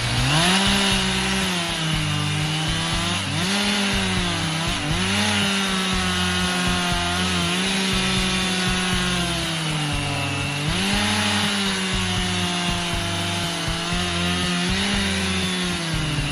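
Chainsaw engine running at high revs while cutting wood. It revs up to full speed right at the start, then its pitch sags under load and picks up again several times as the chain bites into the wood.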